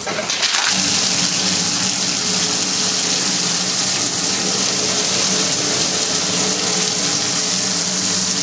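Flood coolant pouring from three half-inch Loc-Line nozzles and splashing into a CNC mill enclosure, a loud steady rush of water that comes up about half a second in, with the coolant pump humming steadily underneath. The system is running wide open, delivering more than the return can drain.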